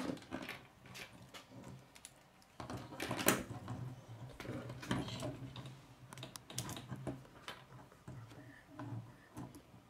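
K'nex plastic rods and connectors being handled and snapped together, making a rapid, irregular run of small plastic clicks and rattles, loudest about three seconds in.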